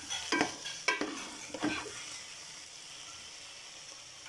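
Wooden spatula stirring minced meat, bitter gourd and peas in a pot, with a few scraping strokes in the first two seconds. After that, a steady low sizzle as the mixture cooks in its own oil with no water added.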